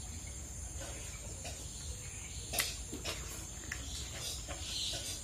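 Steady high-pitched insect chirring, with scattered soft clicks and smacks of mango slices being picked off a metal plate and eaten; the sharpest click comes about halfway through.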